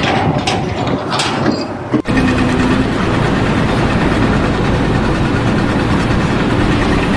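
A few knocks, then, after a sudden break about two seconds in, a heavy engine running steadily.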